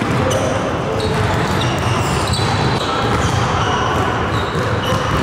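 A basketball being dribbled on a hardwood gym floor, bouncing repeatedly and echoing in the hall. Short high sneaker squeaks come and go, over a background of voices.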